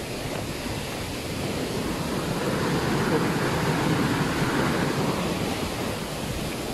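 Steady roar of a waterfall's rushing water, swelling a little in the middle.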